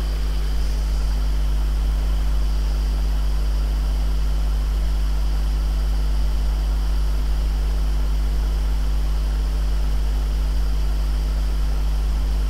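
Steady low hum under an even hiss, with no change and no separate events.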